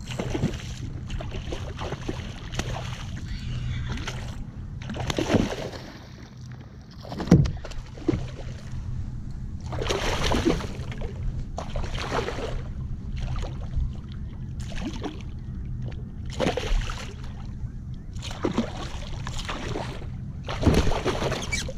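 Hooked bluefish thrashing and splashing at the water's surface beside a kayak, in repeated bursts of splashing a few seconds apart.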